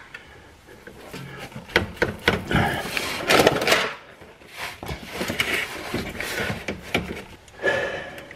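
Metal hand tools clinking and knocking: a combination wrench worked on the oil pan's drain plug, which is overtightened and won't break loose, then a socket and ratchet being handled. A run of sharp clicks and knocks, thickest about three to four seconds in.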